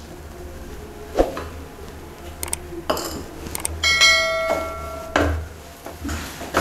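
Wooden spatula knocking and scraping in a nonstick pan as grated mawa is stirred into ghee. About four seconds in, after a few sharp clicks, a bell-like chime rings for about a second; it comes from a subscribe-button animation.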